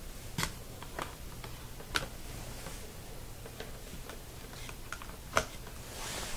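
Scattered light clicks and taps as a USB cable and plug are handled and pushed into a laptop's USB port, the sharpest click about five seconds in.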